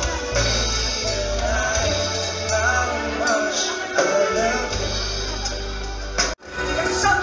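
Live band music with a singer, backed by electric guitar and keyboard. The sound cuts out abruptly for a moment near the end, then the music comes back in.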